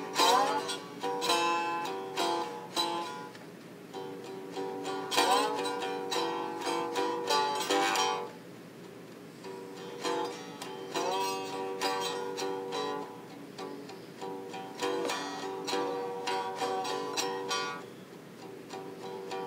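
Homemade box-bodied guitar with a wooden plank neck played with a slide: plucked notes and chords ring on, with notes sliding up in pitch near the start and again about five seconds in.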